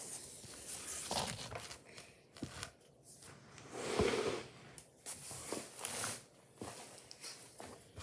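Handling noise: irregular rustling and soft knocks as the phone is moved down to the floor and a hand shifts fabric bags, with the loudest rustle about halfway through.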